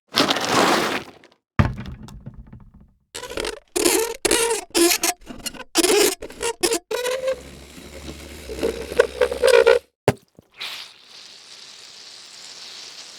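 A string of separate foley sound effects: a short noisy burst, a sharp knock, a run of knocks and creaking, then a steady scraping hiss in the last few seconds.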